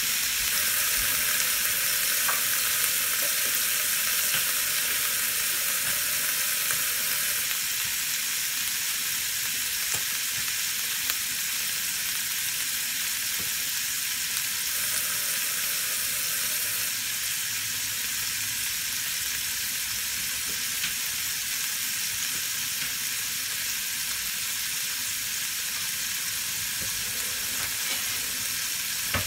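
Skillet of oil, spices, green onions and cilantro stems with a little water sizzling steadily on the stove, easing off slightly over time.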